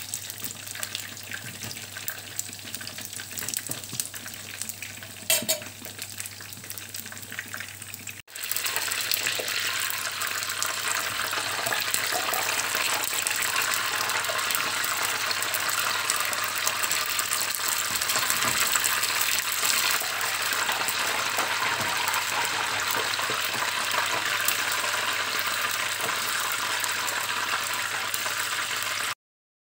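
Belyashi (meat-filled yeast-dough pies) frying in hot vegetable oil in a skillet, the oil sizzling steadily. After a break about eight seconds in, the sizzle is louder, and it cuts off suddenly near the end.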